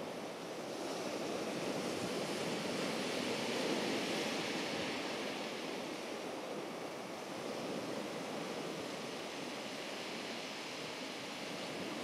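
Surf washing on the shore, a steady hiss that swells and eases, with some wind on the microphone.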